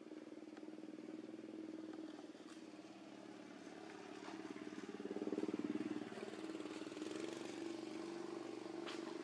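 A small engine running steadily, swelling louder a little past halfway and easing again, with a short sharp click near the end.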